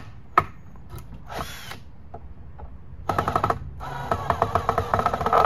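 Ryobi cordless drill backing screws out of a wooden 2x4 frame: a short spin about a second and a half in, then a longer, louder run from about three seconds with rapid clicking.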